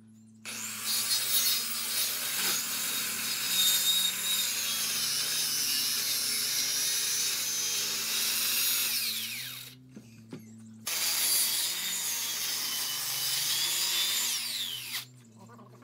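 Handheld electric power saw cutting into a dry wooden stump, in two long cuts of about nine and four seconds with a short pause between them. Each cut ends with the motor's whine falling in pitch as it winds down.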